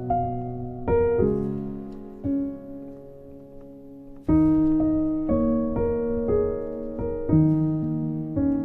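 Slow instrumental piano background music with sustained chords. A louder new chord is struck about four seconds in.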